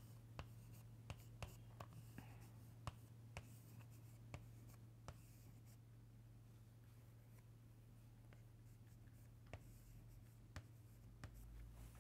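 Chalk on a blackboard while equations are written: a faint run of short taps and scratches, thickest in the first few seconds and again near the end, over a low steady hum.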